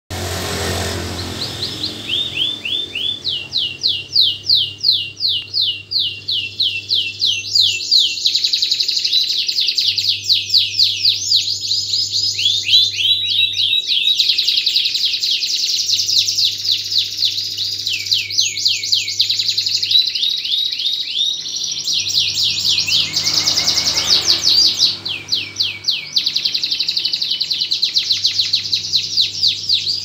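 Domestic canary singing a long, continuous song of rapid repeated trills. It switches to a new trill every second or two, with only brief breaks.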